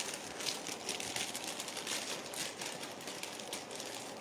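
Faint rustling and crinkling of something being handled, a string of small soft crackles, as a piece of jewellery is taken out to be shown.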